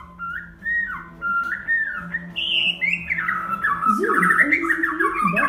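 White-crowned shama singing: clear whistled notes that slide up and down, breaking into fast warbling trills about three seconds in, with lower sliding notes underneath.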